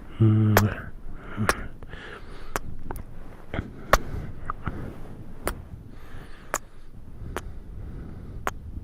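Close-up ASMR kissing mouth sounds: sharp wet smacks and clicks, one to two a second, between soft breaths, with a short hummed 'mm' near the start.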